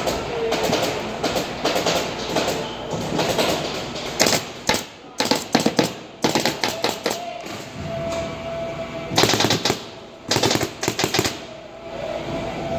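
Rapid bursts of sharp mechanical impacts from shop tool work, several strokes fired in quick succession, in clusters about a second or two apart, mostly in the middle of the stretch.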